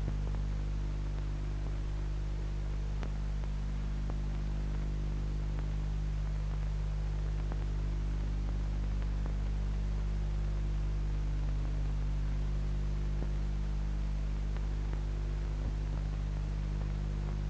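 Steady low hum and hiss of an old film soundtrack running with no speech or music, with a few faint scattered clicks.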